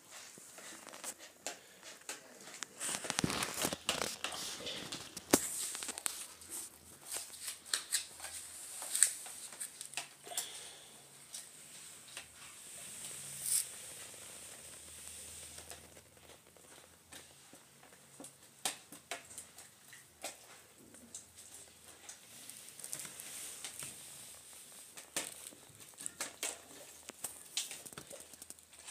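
A utensil stirring and mashing instant noodles in a plastic jug of hot water: irregular scraping and clicking against the jug, with a few sharper knocks.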